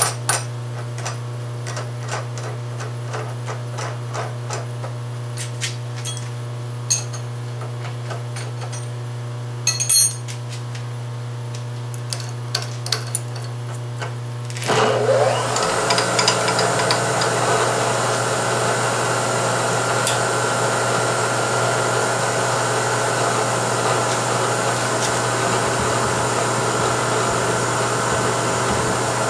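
Metal clicks and clinks as a drill chuck is taken out of a milling machine spindle and a tool is fitted, over a low hum. About halfway through, the mill's spindle motor starts, spins up and runs steadily with a whine.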